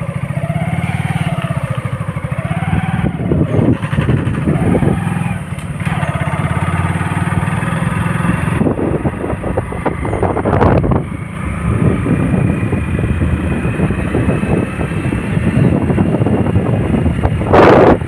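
Motorcycle engine running while riding, its note rising and falling in the first few seconds, with wind rushing over the microphone. A loud burst of noise comes near the end.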